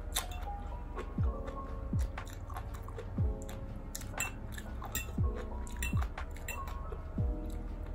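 Close-up chewing of latok (sea grapes), with short sharp clicks and pops as they are bitten, over soft background music with a low beat about once a second.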